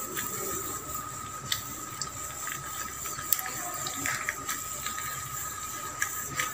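Cashew nuts frying in hot ghee in a shallow pan: a steady sizzle with scattered small pops.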